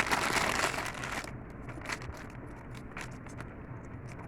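Packaging crinkling and rustling as a small item is handled. It is heavy for about the first second, then drops to faint handling noise with a few light clicks.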